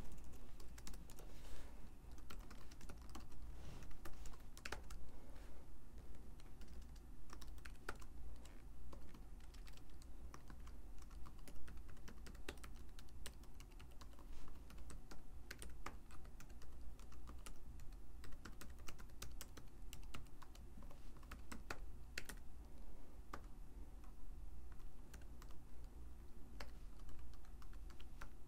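Typing on a computer keyboard: irregular runs of keystrokes.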